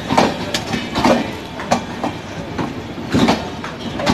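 Passenger train of red-and-grey LHB coaches rolling past on its departure, with a steady rumble of wheels on rail and irregular sharp knocks as the wheels clack over rail joints.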